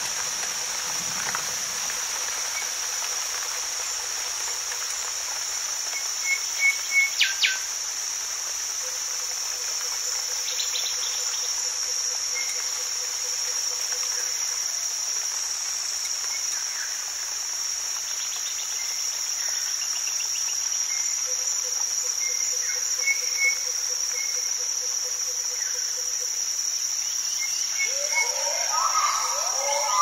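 Rainforest ambience: a steady high-pitched chorus of insects such as crickets. Short bird chirps come about six to seven seconds in and again later, and frog calls with rising pitch start near the end.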